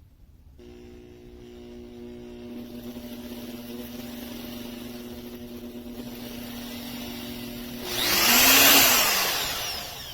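Makita GD0601 die grinder running with a steady whine. About eight seconds in it bites into masonry with a loud, gritty grinding that lasts about two seconds, and its pitch rises and then drops under the load.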